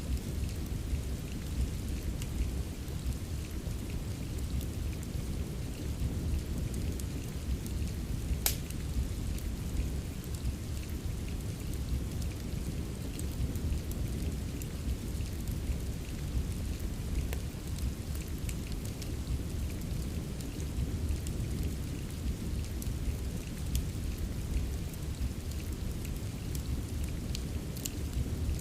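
Steady rain ambience mixed with a crackling wood fire: a continuous, deep wash of rain with sparse sharp pops from the fire, one louder pop about a third of the way through.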